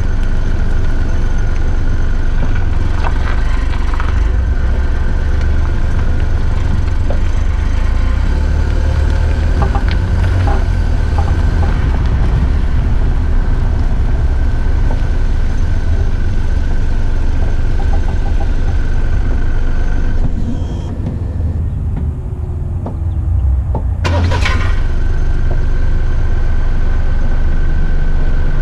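Underside of a 2020 Ford Escape 1.5L EcoBoost while moving slowly: a heavy low rumble with a steady high whine from the rear of the car, the rear-end noise the owner is chasing. About twenty seconds in the sound drops for a few seconds, then a sharp click is heard and the whine comes back.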